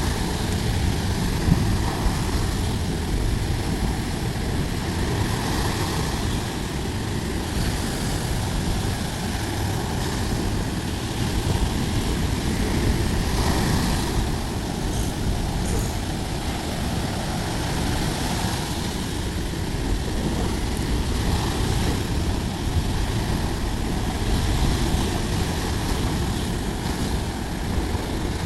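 Sea surf: waves rolling in and breaking on a beach in a steady rumble, swelling louder every few seconds.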